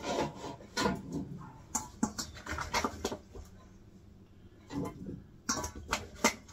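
A utensil scraping and knocking against a metal mixing bowl as chopped seasoned vegetables are scooped out and dropped into an air fryer basket, in a string of irregular scrapes and clatters.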